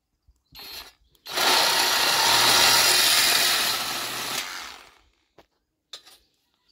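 SKIL SW1E3475CA 20V brushless cordless reciprocating saw. It gives a short burst about half a second in, then runs for about three seconds with its blade sawing rusty steel rod, and dies away about five seconds in.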